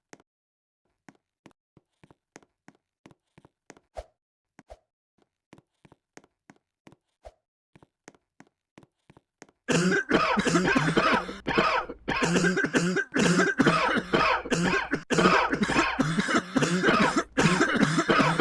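Faint, regular clicks about three a second for roughly the first ten seconds. Then loud, continuous coughing breaks in, with only brief breaks.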